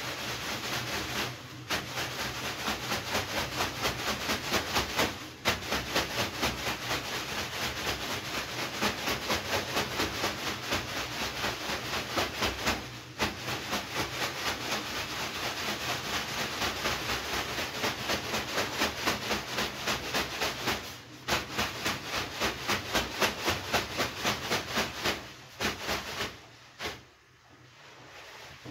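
Leafy banya bath broom (venik), soaked in cold water, swished and whisked rapidly over a person on the steam-room bench. The leaves make a rhythmic rustling swish several strokes a second, with brief pauses every few seconds.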